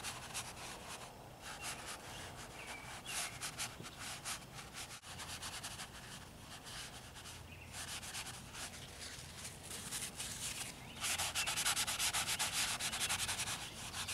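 A folded paper towel rubbed quickly back and forth over wet oil paint on a canvas, blending a shadow into the paint; a soft, scratchy scrubbing that gets louder for a few seconds near the end.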